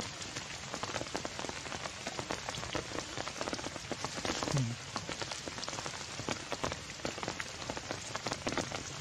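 Heavy rain falling steadily, a dense patter of many drops.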